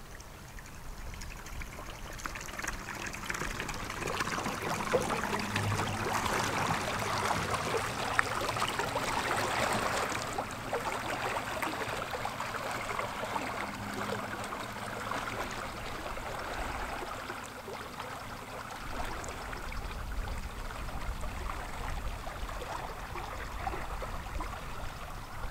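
Water lapping and trickling against the reeds at the bank, a dense crackling wash that builds over the first ten seconds or so and then holds steady.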